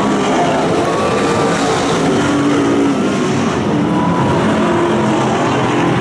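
Several dirt-track Super Stock race cars running loud and together, their engines' pitches overlapping and rising and falling as they lift off and accelerate through the turn.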